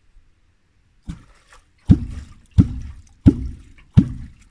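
Catfish clonk (wooden calling stick) being struck into the water surface, used to lure fish up from the bottom. Five low plops about 0.7 s apart, starting about a second in, the first lighter than the rest.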